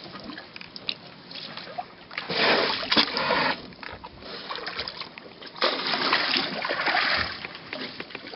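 Water splashing and gushing as African elephants drink from a pool, drawing water up their trunks and emptying it into their mouths: two gushes, each over a second long, with drips and small splashes between.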